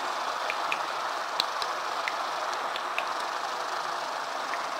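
Grated beetroot, carrot and onion frying in vegetable oil in a pan: a steady sizzle with scattered small pops.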